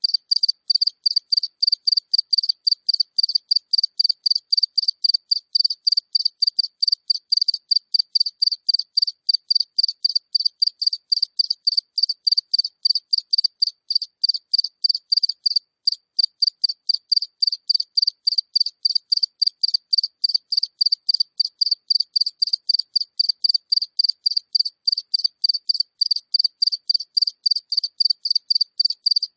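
A single cricket chirping close up: short, even, high-pitched chirps at about three to four a second, keeping a steady rhythm.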